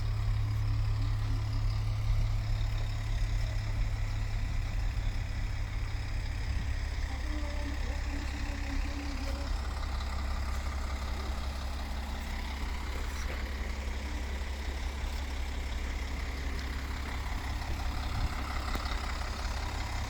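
Heavy engine idling with a steady low rumble.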